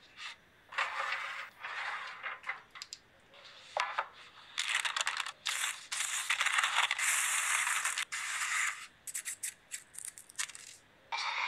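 Crisp baked potato chips crackling and rattling as a hand shuffles them on a parchment-lined baking tray and squeezes them, in several bursts of dry crunching.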